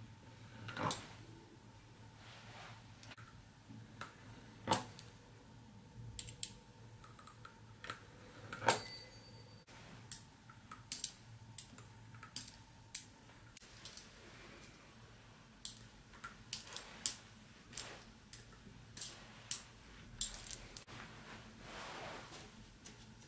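Fluted pastry wheel cutting a thin sheet of rolled dough on a hard countertop: irregular light clicks and taps as the metal wheel meets the counter, over a faint steady low hum.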